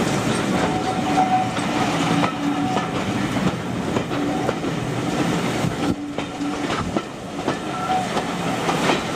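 Passenger train running slowly, heard from aboard a carriage: a steady rolling rumble with the clickety-clack of the wheels over rail joints.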